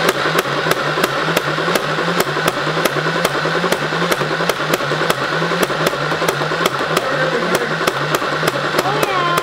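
Nerf Rival Nemesis MXVII-10K blaster firing foam balls on full auto: its flywheel motor whirs steadily while the shots come evenly, about three a second.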